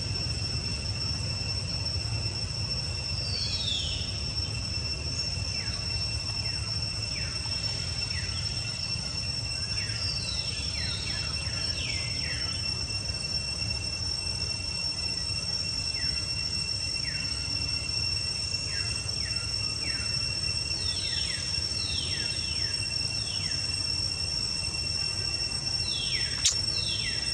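Forest ambience: a steady high-pitched drone of insects, with groups of short downward-sweeping bird calls now and then over a low rumble. A single sharp click near the end.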